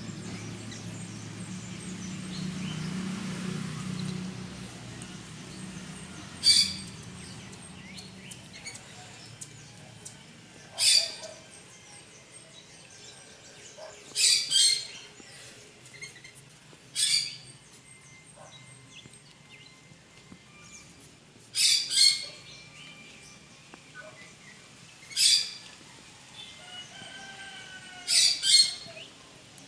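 A bird giving short, sharp calls about every three to four seconds, some of them doubled.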